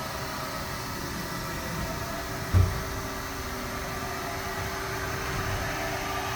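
Steady machinery hum with a constant tone, broken by a single low thump about two and a half seconds in.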